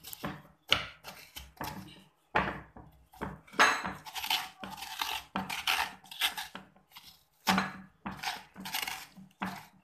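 Metal spoon scraping the seeds and soft pith out of the inside of a halved winter melon: a run of rasping scrapes, about two a second.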